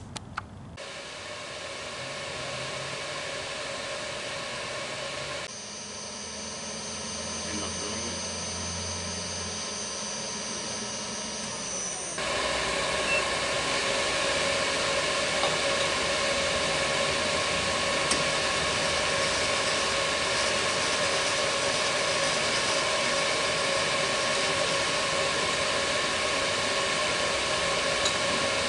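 Milling machine motor running steadily with a constant whine and hiss. The sound shifts abruptly twice, and is louder and steadier from about twelve seconds in.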